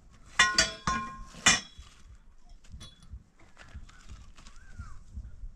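Metal frame bars clanking against each other as they are handled: four sharp, ringing clanks in the first second and a half, then fainter knocks and scrapes.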